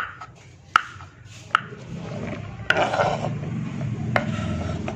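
Kitchen knife cutting straw mushrooms on a wooden cutting board: sharp knocks of the blade on the board about once a second, with a scraping rustle midway as the pieces are pushed across the wood. A low steady hum runs underneath from about two seconds in.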